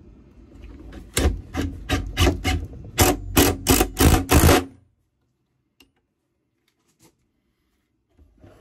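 Cordless drill-driver driving a screw to fix a metal angle bracket under a drawer corner, in about ten short trigger bursts roughly three a second, stopping just before halfway. A few faint clicks follow near the end.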